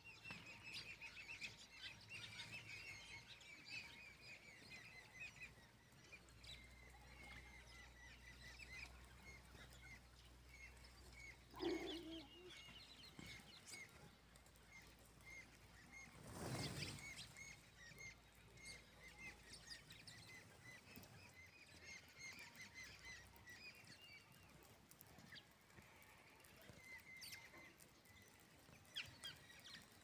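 Faint, steady chirping from a flock of small birds feeding on the ground, many short high chirps. A single lower call sounds about twelve seconds in, and a brief whoosh a few seconds later.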